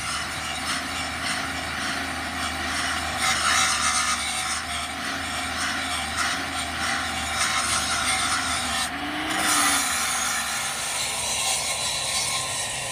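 Electric angle grinder grinding the steel teeth of a helical gear pinion shaft, a steady metal-on-abrasive grinding noise over the whine of the grinder's motor. The disc is dressing down weld build-up laid on to rebuild broken gear teeth. About nine seconds in, the motor pitch briefly dips and recovers as the load changes.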